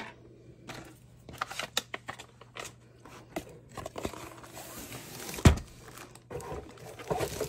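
Handling noise from a cardboard kit box being opened: scattered scrapes and clicks, then the crinkle of a plastic sleeve as a rolled canvas is slid out. One sharp thump comes about five and a half seconds in.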